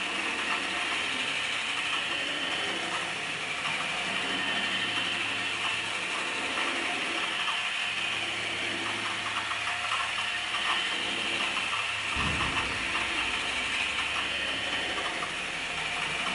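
Mechanical drawing machine running: a steady whir with fast, fine clicking of gears as it drives the pen over the paper. A low bump comes about twelve seconds in.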